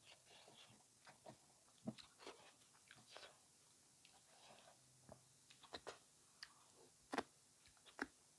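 Quiet, close-miked chewing and mouth sounds of someone eating a chicken and rice meal. Scattered soft clicks and small crunches, with the sharpest ones about seven and eight seconds in.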